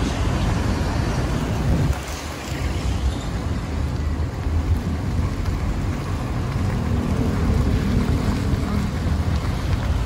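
Wind rushing over the microphone of a phone held out of a moving car's window, over the low steady rumble of the car and its tyres on the road. It dips briefly softer about two seconds in.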